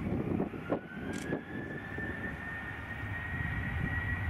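Boeing 737 jet engines spooling up for take-off: a whine that rises in pitch about a second in and then holds steady, over a low, uneven rumble.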